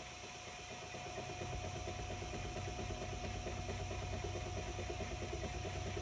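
Ortur Laser Master 2 Pro diode laser engraver running a fill pass: its stepper motors buzz as the head scans rapidly back and forth, over a steady tone, with a low hum growing louder about a second in.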